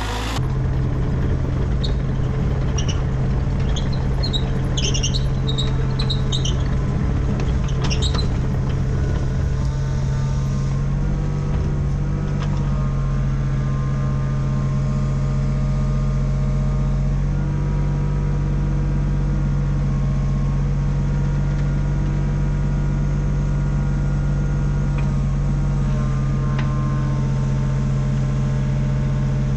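Skid steer's diesel engine running at a steady speed, a constant low drone. A scatter of brief high squeaks comes a few seconds in.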